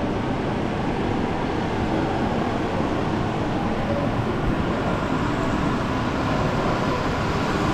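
Steady, loud rumbling noise with no distinct events.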